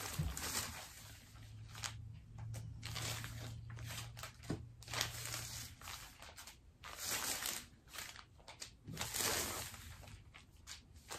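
Paper foundation pieces and fabric strips rustling and crinkling in irregular bursts as they are handled and sorted, with a faint low hum for about the first half.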